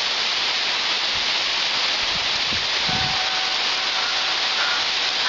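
Steady rushing hiss of rain-fed streams cascading down a rocky hillside as small waterfalls, with a few low thumps about two to three seconds in.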